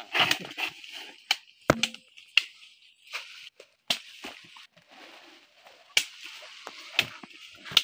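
Irregular sharp chopping knocks of a sickle hacking cassava roots off their stems, about a dozen spread unevenly, over a faint steady hiss.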